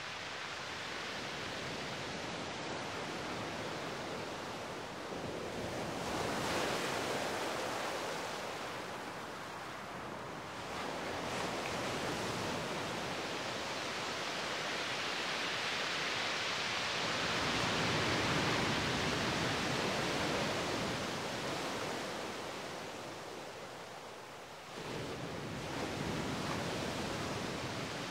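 Ocean surf: a steady rush of waves that swells and eases back every five or six seconds.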